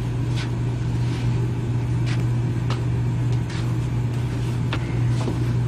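A steady low hum with faint, irregular clicks over it.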